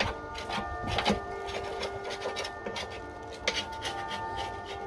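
Small hand brush scrubbing softened, paint-stripped metal on a slam panel, in quick irregular strokes several times a second.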